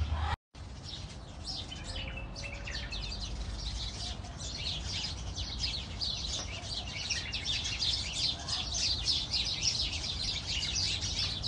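A crowd of small birds chirping and chattering together in the trees, the chatter growing denser and busier about halfway through.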